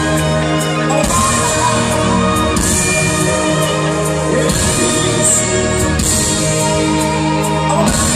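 Live pop band playing at full volume through a PA: drums, bass, electric guitar and keyboards, with singing over the top.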